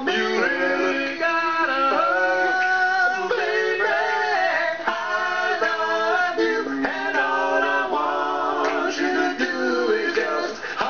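A man singing a melody in long held notes that step up and down in pitch.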